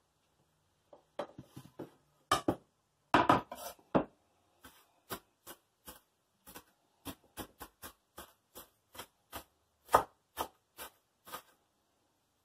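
Kitchen knife chopping red onion on a wooden cutting board: a run of sharp knocks, a few irregular heavy ones first, then steady chopping at about two to three strokes a second that stops shortly before the end.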